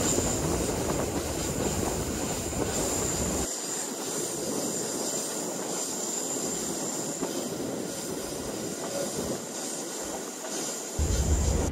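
Passenger train running on the rails: a steady wash of rail and wheel noise with a thin high whine. The deep low part of the noise cuts out abruptly about three and a half seconds in and comes back near the end.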